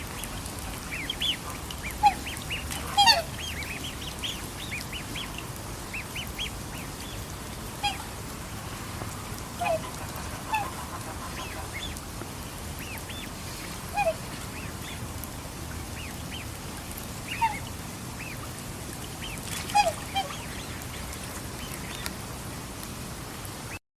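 Black swans calling: short, high, bending bugle-like notes, scattered every second or few seconds and sometimes overlapping, over a steady low background noise. The sound cuts off abruptly just before the end.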